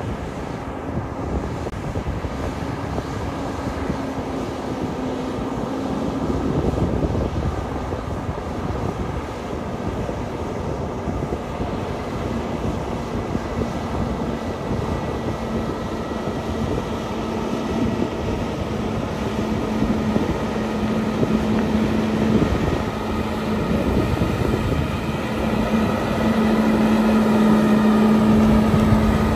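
Kenworth road train's diesel engine running at low speed as the truck approaches, a steady drone that grows louder near the end as it pulls close by.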